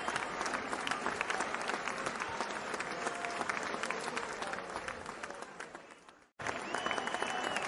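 Crowd applauding, a dense patter of hand claps. It fades away about six seconds in, stops for a moment, then cuts back in suddenly at full level.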